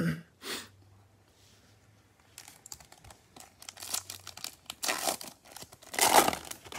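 Foil trading-card pack being torn open by hand, the wrapper crinkling in a run of rustles that starts about a third of the way in and is loudest near the end.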